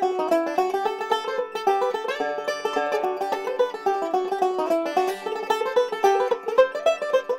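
Five-string resonator banjo played solo: a fast, even stream of picked notes in a bluegrass-style tune.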